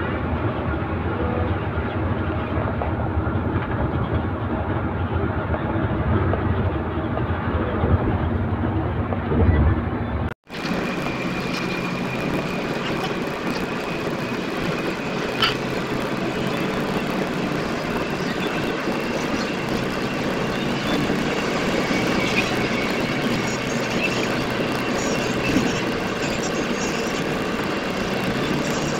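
Tour bus driving along a motorway, heard from inside the cabin: steady engine and road noise with a few scattered clicks, broken by a brief drop-out about ten seconds in.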